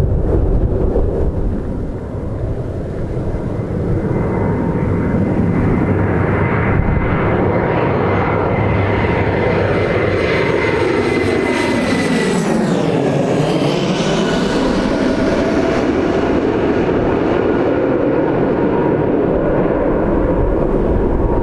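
Jet airliner passing low overhead on approach. A steady jet roar carries a whining engine tone that drops in pitch as the aircraft passes about twelve to thirteen seconds in.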